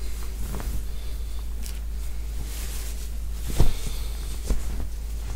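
Knit sweater fabric rustling as it is pulled on over the head and tugged down, with a few soft knocks; the loudest is a dull thump a little past halfway. A steady low hum runs underneath.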